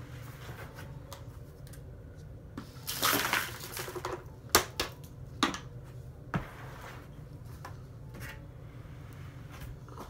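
Dirt and debris emptied from a vacuum's clear dust canister into a plastic tub: a rattling pour about three seconds in, then three sharp knocks as the canister is tapped or clicked.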